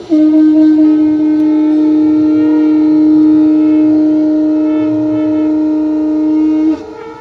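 Several conch shells (shankh) blown together by the aarti priests in one long, steady, loud note. A second pitch joins about a second in, and the blast cuts off suddenly shortly before the end.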